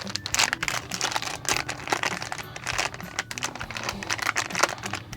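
Plastic packaging crinkling, with many small irregular clicks and rattles as the RAM chips are handled and unpacked.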